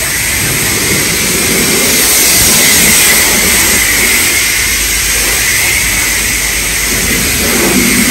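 Car wash high-pressure wand spraying water onto a car's body and wheels: a steady, loud hiss of spray.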